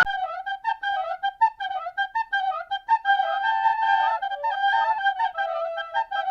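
A solo wind-instrument melody of quick notes in a high register, with nothing else under it. It starts abruptly as a louder, fuller sound cuts off.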